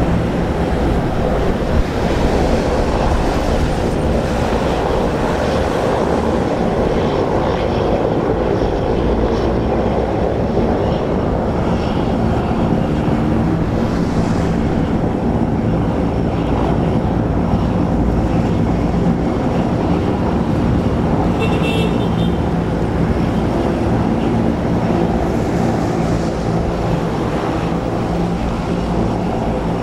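Small twin-engine turboprop plane running steadily at takeoff power, a loud even sound with a low hum of engine tones that holds at the same level throughout.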